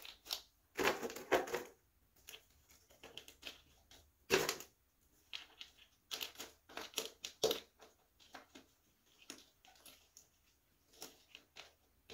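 Chunks of pine bark orchid substrate crunching and rattling in scattered short bursts as they are dropped and pressed by hand into a clear plastic pot.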